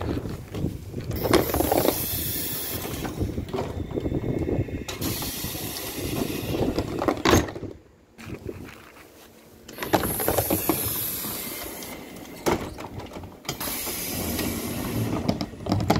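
Double passenger doors of a KVB Stadtbahn light-rail car working, the door drive running with hissing. A knock as they shut about seven seconds in, then after a short quiet spell they run open again with more hissing.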